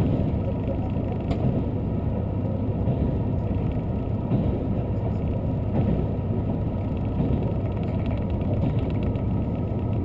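Steady running noise inside the cabin of a diesel limited-express train: a low engine drone and rumble of wheels on the rails, with a few faint clicks.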